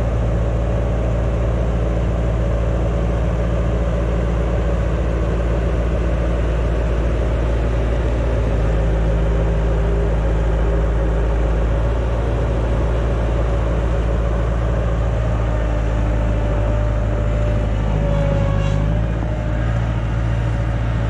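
Bobcat skid-steer loader's diesel engine running steadily under load, its note shifting a few times as the loader lifts and moves.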